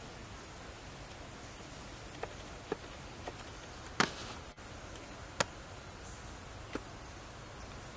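Steady high-pitched drone of insects, with a handful of short sharp clicks or snaps scattered through it; the loudest click comes about four seconds in.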